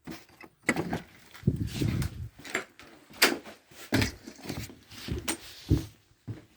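Irregular knocks, clicks and rustling of someone moving about and handling things, with a few sharper knocks about three and five seconds in.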